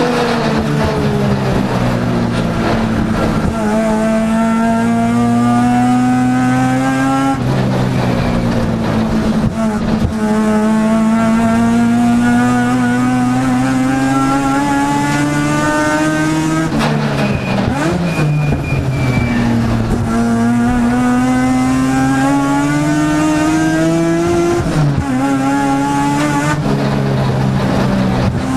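Mazda RX-7 rotary engine heard from inside the race car's cabin under hard racing acceleration. Its pitch climbs in long pulls and falls back sharply at each gear change or lift, several times.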